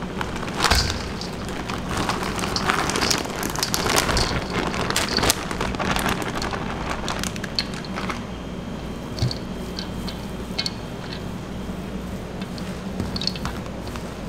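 Coarse-ground beef being emptied from a plastic bag into a stainless steel bowl, the bag crinkling with many quick crackles. In the second half, gloved hands work the mince in the bowl with sparser, fainter ticks and squishes.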